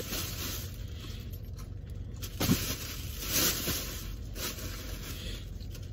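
Thin plastic carry-out bag rustling and crinkling in short, irregular handfuls, over a low steady hum inside a car.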